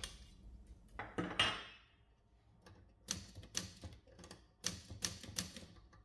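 1958 Everest K2C portable typewriter: two metal clunks about a second in as its top cover is lifted off, then a run of about nine separate keystrokes, the typebars snapping against the platen.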